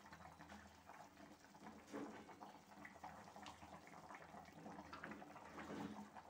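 Faint bubbling of a thin chicken curry simmering uncovered in a pot, with many small scattered pops.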